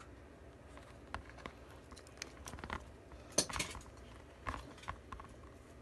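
Scattered small clicks and taps of a plastic toy alien being handled and pressed to suck slime back inside it, with a louder cluster of clicks past the middle.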